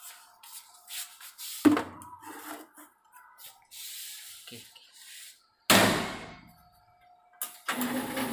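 Knocks and clunks as a paint can is loaded into an electric paint shaker, with a loud clatter about halfway through that dies away over a second. Near the end the shaker starts up and runs with a steady hum.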